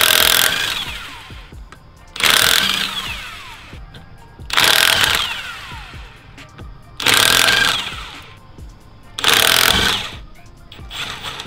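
Impact wrench hammering in bursts of about a second and a half, one every two to three seconds, each ending with the motor winding down in pitch: lug nuts being spun off a wheel.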